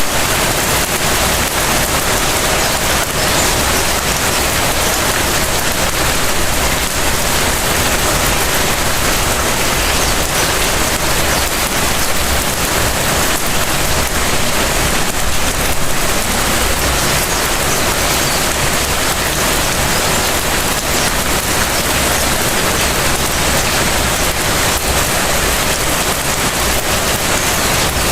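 Light rain falling steadily onto surfaces, a continuous even hiss without breaks.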